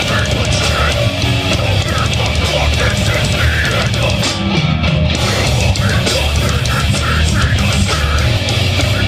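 Death metal band playing live: heavily distorted guitars, bass and drum kit, loud and steady.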